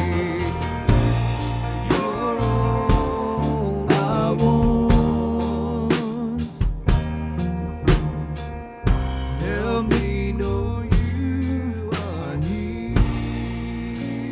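Live church worship band playing an instrumental passage: a steady drum-kit beat under sustained chords and bass, with a melody line that bends and wavers above it.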